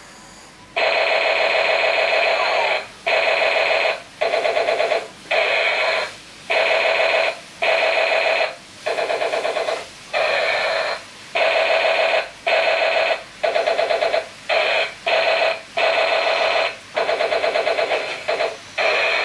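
Battery-powered light-up toy blaster gun playing its electronic shooting sound effect through its small built-in speaker, a rapidly pulsing electronic sound. It comes in over a dozen bursts of half a second to two seconds each, with short gaps between them, as the trigger is pressed again and again.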